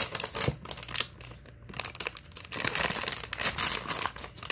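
Plastic wrapping of a Littlest Pet Shop blind bag crinkling as it is handled and torn open, with a denser stretch of crackling just after the middle.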